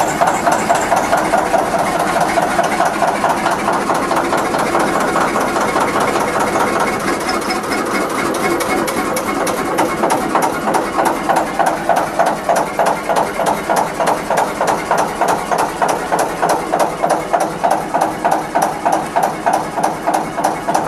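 Kelvin K2 two-cylinder diesel engine running just after a cold start made with its thermostart. It settles over the first several seconds into a steady idle with distinct beats about three times a second.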